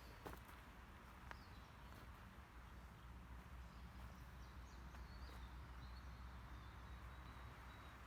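Near silence of a quiet outdoor campsite, with faint high bird calls wavering through most of it.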